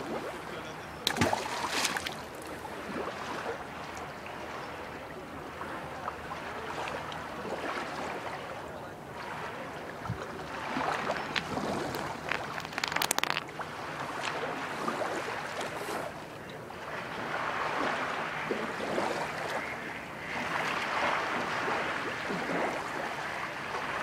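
Small waves washing steadily on a lakeshore. About a second in there is a sharp splash as a thrown fishing magnet on its cable hits the water, and a few more sharp knocks come around the middle.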